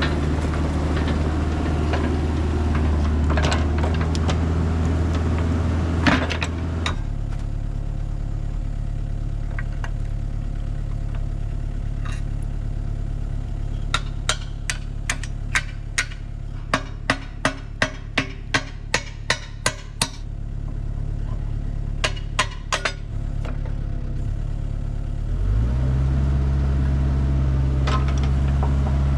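Excavator's diesel engine running steadily, dropping to a lower speed about a quarter of the way in and speeding back up near the end. In between comes a quick run of about a dozen sharp clicks over several seconds.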